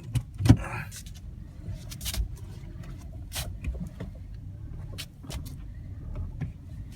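Kia Carens with the steering wheel being turned, the engine running with a steady low hum. A sharp knock comes about half a second in, followed by several lighter clicks and knocks. The wheel is being turned to bring out an intermittent metallic knock that the owner hears when steering.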